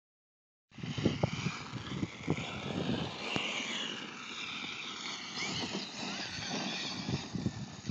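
Electric motor and gear whine of a Traxxas E-Maxx RC monster truck, rising and falling in pitch as it speeds up and slows, over irregular low thumps. It begins shortly after a brief silence.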